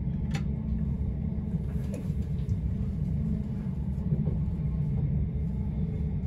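Steady low rumble inside the carriage of a Southern Class 377 electric multiple unit running along the line, with one sharp click about half a second in.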